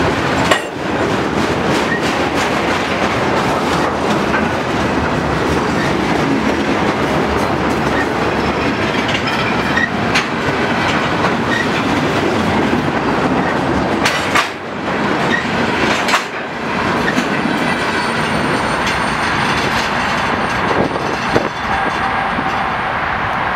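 Loaded steel slab cars of a freight train rolling past close by: a steady rumble and clatter of steel wheels over the rails, with a few sharp knocks. The last car goes by near the end.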